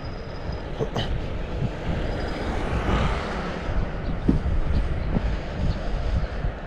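Wind rumbling on a GoPro's microphone while riding a mountain bike, with a vehicle passing that swells up and fades about three seconds in.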